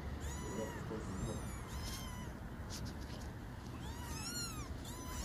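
An animal calling several times: short high-pitched calls, each rising and then falling in pitch.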